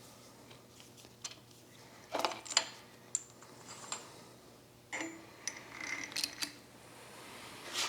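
Scattered light metallic clinks and taps of hand tools and timing-chain-set parts being handled on a small-block V8.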